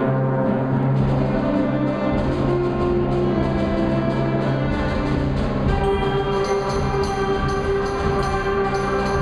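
A junior high concert band playing held brass and woodwind chords over a steady low drum pulse. Higher parts and shimmering percussion join about six seconds in.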